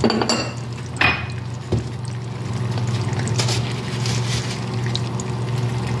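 Hot oil sizzling in a pot as ground spices fry with onions and ginger-garlic paste, with fine crackling. There are sharp knocks near the start and again about a second and a half in.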